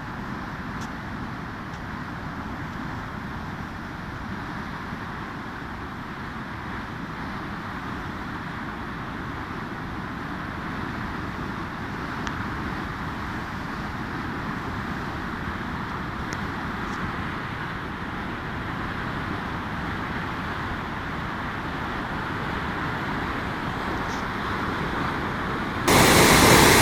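A river in flood rushing, a steady even rush of water that slowly grows louder. Near the very end it cuts suddenly to a much louder, brighter rush of water.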